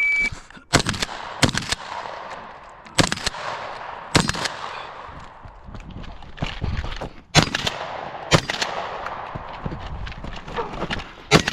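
The shot timer's start beep, a short steady tone, is followed by shotgun fire in a practical shooting stage. About seven loud shots come at uneven gaps, some close together and some a few seconds apart, each with a ringing echo after it.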